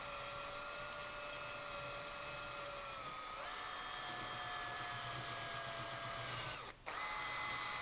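Power drill spinning a wire brush at low speed against the carbon-caked combustion chamber of a Tecumseh small-engine cylinder head, decarbonizing it: a steady motor whine over the scratchy scrub of the brush. The pitch sags, then steps up about three seconds in; the drill cuts out for an instant near the end and picks straight back up.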